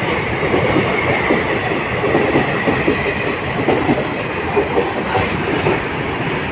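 A passenger train's coaches rolling steadily past, the wheels clattering over the rail joints in a dense run of clicks, with a faint steady whine above the rumble.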